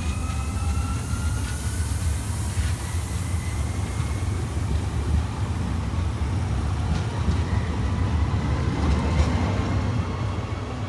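SNCF train running through the station: a steady heavy rumble with a thin whine that rises slowly in pitch, and a few clicks from the wheels.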